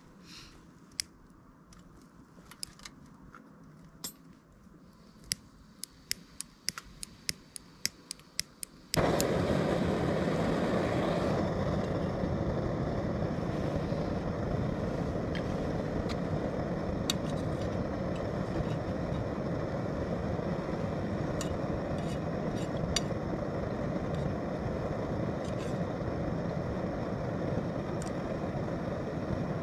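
A run of sharp clicks, then about nine seconds in a Primus Omnifuel gas stove burner catches with a sudden flare and settles into a loud, steady burner noise that runs on under a Trangia coffee kettle.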